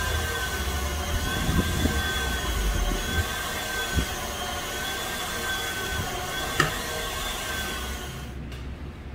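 Steady machine hum with a faintly wavering high whine, and a few short clinks, one of them as a metal ladle spoons pearls into the serving box. The hum drops away near the end.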